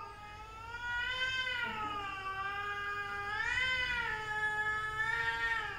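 A cat's single long, drawn-out yowl, wavering slowly in pitch and rising again about two-thirds through before it stops: a threat yowl from a cat squaring off against a rival cat.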